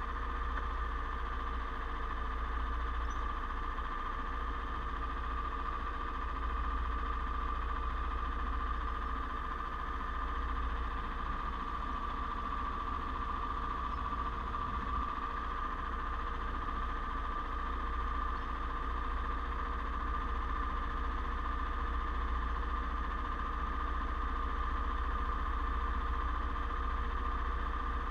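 Go-kart engines idling at a standstill: a steady, unchanging hum with a constant high whine over a low rumble.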